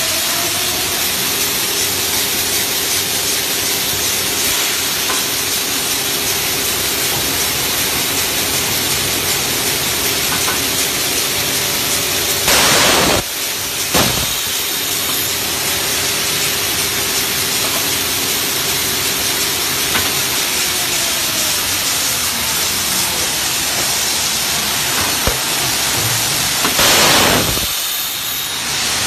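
Adhesive tape slitting and rewinding machine running: a steady hiss with a low motor hum as it slits a wide roll of red printed packing tape into narrow rolls. Twice, about 13 and 27 seconds in, a louder burst of hiss lasting about a second.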